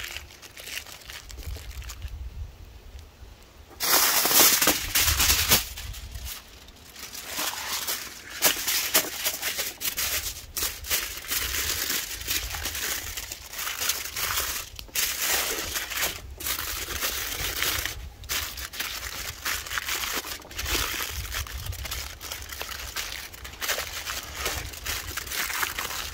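Aluminium foil crinkling and crumpling as it is handled, folded and wrapped by hand, with a louder burst of crackling about four seconds in.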